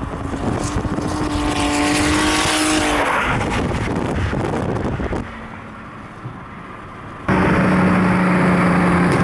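Turbocharged VR6 engine of an MK2 Volkswagen Jetta running hard at high revs as the car passes, its note dropping in pitch about three seconds in. After a quieter stretch the sound cuts abruptly to a loud, steady, lower engine drone near the end.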